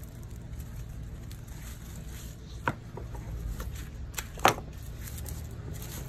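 Hand pruners snipping greenery stems, two short sharp snips with the louder one about four and a half seconds in, amid the soft rustle of leatherleaf fern fronds being handled, over a low steady hum.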